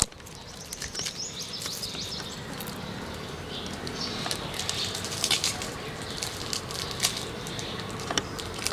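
Scattered rustling and crackling clicks, with a few quick high bird chirps about a second in and again near the middle.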